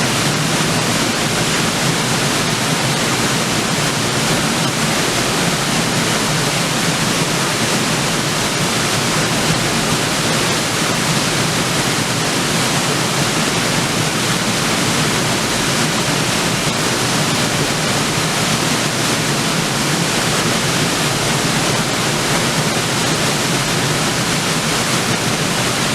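River waterfall: water falling and splashing onto rocks in a steady, loud, unbroken rush.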